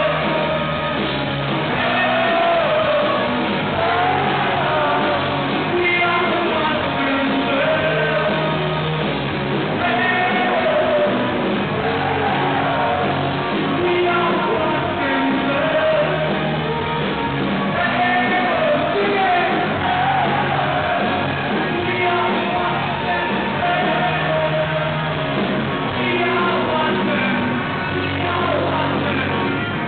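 Rock band playing live, with a male lead singer singing hard over a full band with guitar, bass and drums, heard from close to the stage in the hall.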